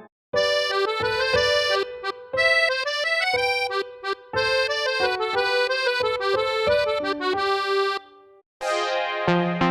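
Huawei EMUI 12 ringtone on a Nova 5T: a tune of quick separate notes that stops about eight seconds in. After a short pause the next ringtone starts.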